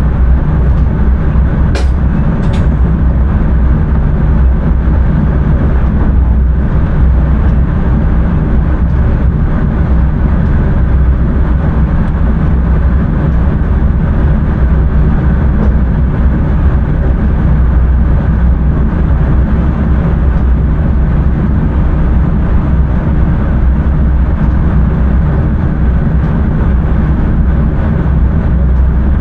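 Steady running noise inside the driver's cab of an electric intercity train under way: a constant low rumble of wheels on track and running gear. Two sharp clicks come about two seconds in.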